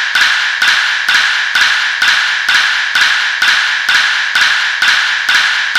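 A tapping sound effect repeated at an even pace, about two short sharp knocks a second, each with a brief bright ring, one for each step of the counter ticking up by one.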